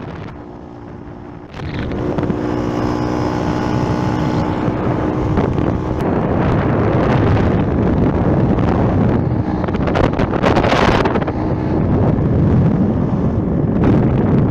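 Motorbike engine running at road speed with heavy wind noise on the microphone, which jumps much louder about a second and a half in and gusts strongly near the middle.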